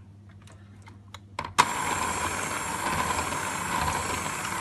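A few light clicks, then about one and a half seconds in an electric hand mixer switches on suddenly and runs steadily with a constant motor whine. Its wire beaters are whisking cake batter in a metal bowl.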